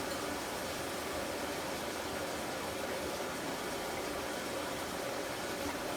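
Samsung washing machine running its wash cycle with a steady, even hiss.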